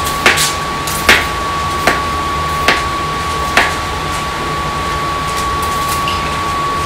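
Kitchen knife chopping hot dogs on a plastic cutting board: five sharp knocks a little under a second apart, then the pieces slid off the board into a glass baking dish near the end. A steady hum with a thin high whine runs underneath.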